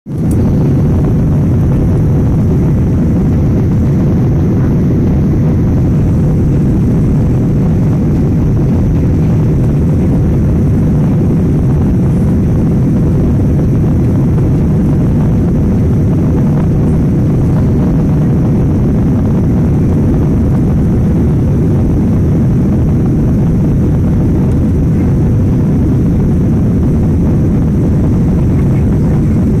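Jet airliner cabin noise heard from a window seat: engines and airflow make a steady, loud, low-pitched noise that does not change.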